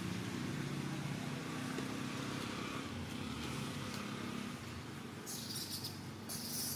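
A motor engine running steadily with a low hum that fades about four and a half seconds in, followed by two short bursts of hiss.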